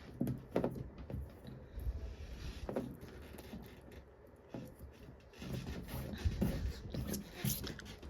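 Scattered small clicks, taps and scraping from hands picking at bits of black plastic stuck to a table surface, busier near the end.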